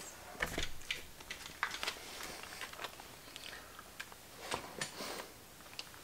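A hand pick tool and small metal switch parts handled on a cloth-covered bench: light, irregular clicks and short scrapes, coming in small clusters.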